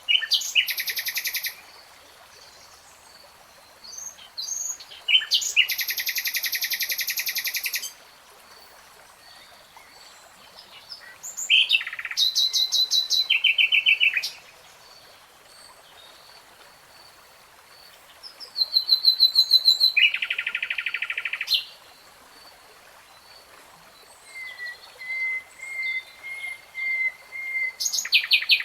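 A songbird singing in separate phrases of rapid repeated high notes, about five phrases each lasting one to four seconds with short pauses between, over a faint steady high-pitched tone.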